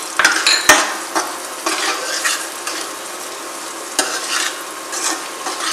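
A metal slotted spoon stirring and scraping onions, peas and green chillies around an aluminium kadhai while they sizzle in butter. A few sharp clinks of the spoon on the pan stand out, one about two-thirds of a second in and another about four seconds in.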